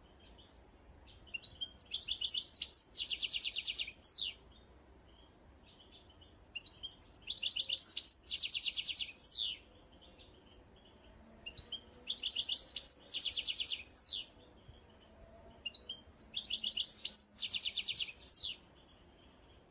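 A songbird singing the same song phrase four times, one every four to five seconds: each is a fast run of evenly spaced high notes that ends in a quick downward slur.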